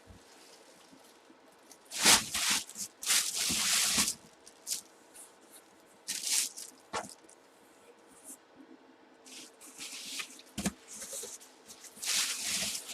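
Packaging handled during a helmet box opening: irregular bursts of plastic and cardboard crinkling and rustling, with a few light knocks, heaviest about two seconds in and again near the end.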